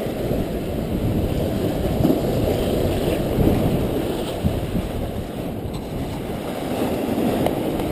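Steady wind rumbling on the microphone over waves washing against jetty rocks.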